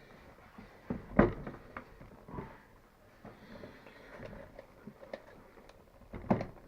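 Hand-handling noise from working bolts into a new rubber motorcycle seat: a sharp knock about a second in, a few softer clicks and rustles, and another knock near the end.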